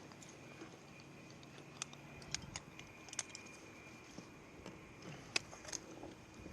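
Scattered light, sharp clicks and clinks, about a dozen at irregular intervals, the loudest about five seconds in, over a faint steady background.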